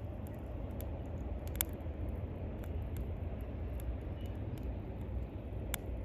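Wood fire crackling: irregular sharp pops over a steady low rumble, with a louder pop about a second and a half in and another near the end.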